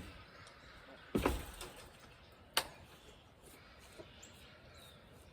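Three short knocks or bumps, about a second and a half apart, over an outdoor background with faint bird chirps.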